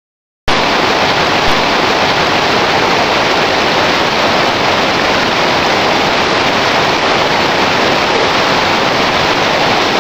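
River rapids rushing: loud, steady white-water noise that cuts in suddenly about half a second in and holds without change.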